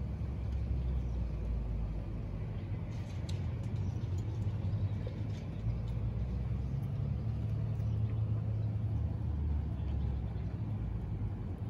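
Low, steady rumble of city street traffic that swells and eases, with a few faint clicks a few seconds in.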